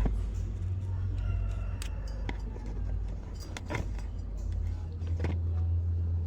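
Light metallic clicks and taps of tools and parts being handled during electrical work on the truck, over a steady low rumble.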